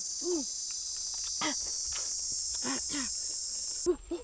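A high, steady insect drone fills the forest air, with a few short, arching "wa" calls from a boy's voice over it. Near the end the drone cuts off abruptly and a louder "wa" call follows.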